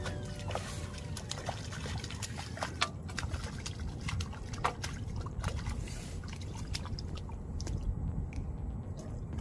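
Water trickling and dripping, with irregular small splashes and sharp ticks over a low rumble.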